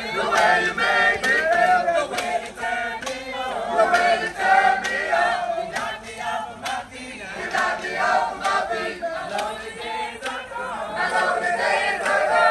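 A large group of young marching-band members singing a song together without instruments, with sharp percussive hits scattered through the singing.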